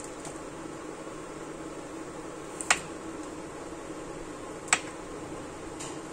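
Two sharp clicks about two seconds apart as a pizza cutter wheel cuts slits through bread dough on a parchment-lined metal baking tray, over a steady low hum.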